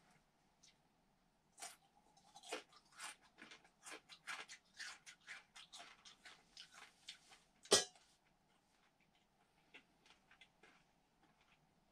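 A Weimaraner chewing a piece of fried bacon: a quick run of short crunches starting about two seconds in, ending with one sharper snap, then only a few faint chews.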